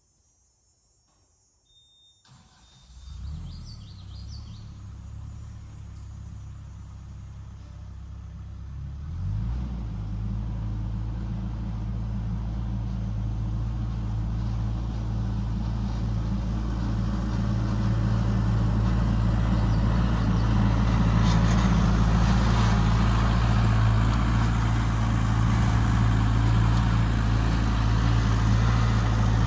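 A motor vehicle's engine running, starting faintly about two seconds in, stepping up around nine seconds in and growing steadily louder as it draws near.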